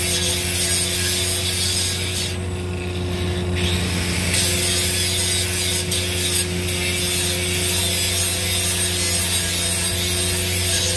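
A machine running steadily, with a constant hum under a high hiss. The hiss drops out briefly about two seconds in, then returns.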